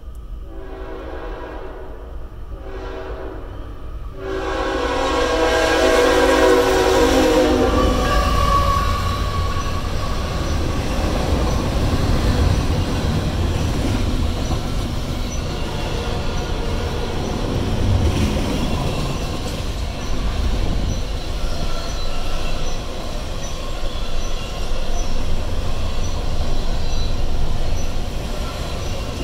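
Tier 4 diesel locomotive's air horn sounding several blasts with short breaks as the train approaches, the last one the loudest as the locomotive passes about five seconds in. After that, double-stack intermodal container cars roll past with a steady rumble and clatter of wheels on rail.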